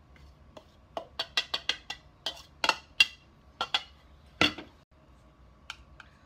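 Metal spoon clinking and knocking against a ceramic bowl as flour is tapped and scraped out of it: a quick run of light clinks, then a few louder knocks, and two small clicks near the end.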